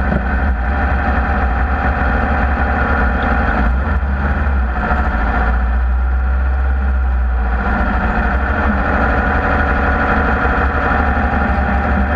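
Off-road race vehicle's engine running steadily, with a heavy low rumble.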